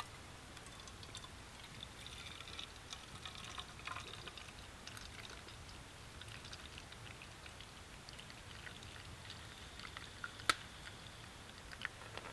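Hot coffee being poured from a pot into a titanium camp mug: a soft, steady trickle of liquid into the cup, which ends about ten seconds in. One sharp click follows shortly after, with a couple of smaller ones near the end.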